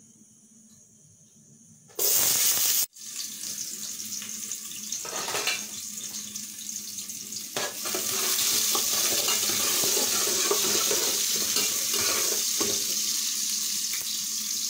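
Sliced onions frying in hot groundnut oil: a loud sizzle starts suddenly about two seconds in, breaks off, then comes back and settles into a steady sizzle that grows louder.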